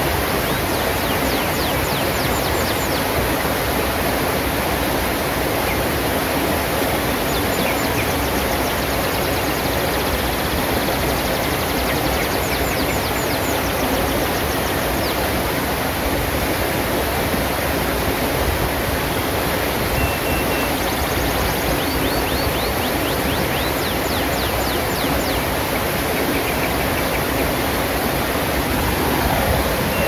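Shallow rocky stream rushing steadily over boulders and small cascades. Faint high bird chirps come in brief quick runs several times over the water noise.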